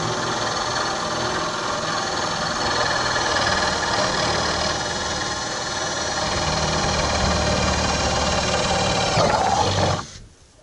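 A handheld power tool's motor running steadily under load for about ten seconds, then stopping quickly.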